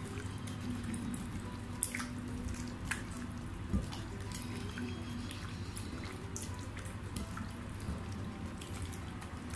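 Bare hands squishing and kneading raw chicken pieces in a wet egg-and-yogurt marinade in a ceramic bowl: wet squelching with scattered clicks.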